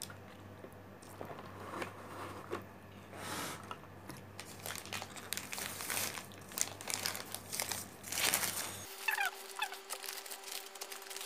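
Paper sandwich wrapper crinkling and rustling in irregular bursts as it is pulled open by hand.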